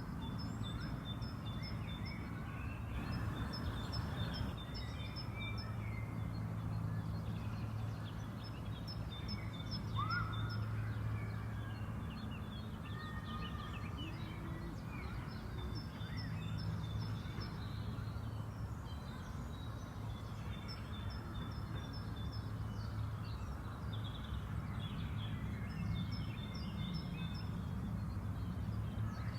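Spring park ambience: small songbirds chirping and singing in repeated short high phrases over a steady low background rumble.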